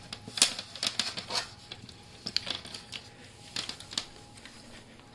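Irregular light clicks and taps of solar-panel output cables and their plastic connectors being handled and knocking against the panel, thinning out after about four seconds.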